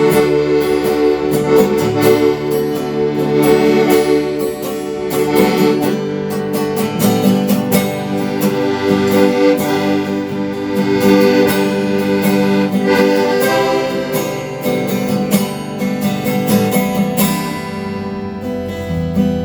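A small band playing an instrumental break of a country ballad: a melody in long held notes over guitar accompaniment.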